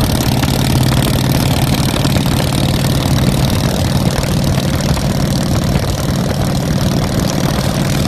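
Custom chopper motorcycle engine running steadily at highway cruising speed. It is heard under a dense, even rush of wind and road noise.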